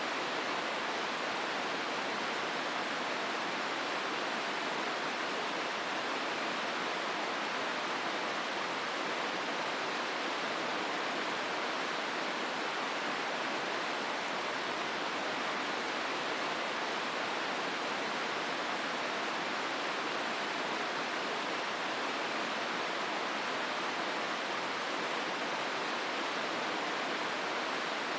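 The Hozu River rushing through the gorge: a steady, unbroken hiss of flowing water.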